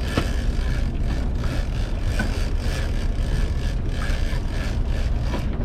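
Steady rumble of a charter fishing boat's engine running while trolling offshore, with a constant noisy hiss above it.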